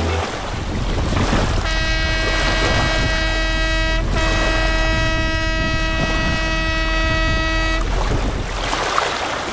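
Boat horn sounding two long, steady blasts of the same pitch, almost back to back: the first about two and a half seconds, the second about three and a half. Under it runs the low drone of a boat engine.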